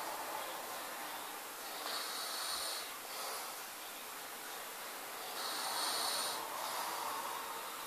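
A man snoring in his sleep: slow, regular snores about every three and a half seconds, one about two seconds in and another around six seconds in, each lasting about a second.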